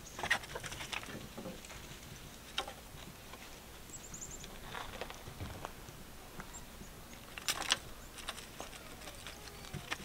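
Scattered light scratches and crunches on gravel, with a wire rake scraping across the gravel about seven and a half seconds in. A few faint high chirps, from small birds such as chickadees, come about four seconds in.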